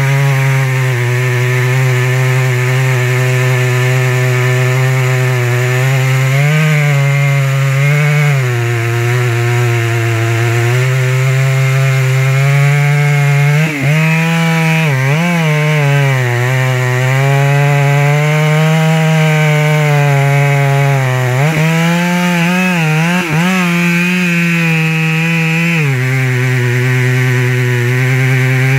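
Two-stroke chainsaw running at full throttle, cutting into the trunk of a lodgepole pine in a felling cut. The engine note sags and recovers several times as the bar loads up in the wood.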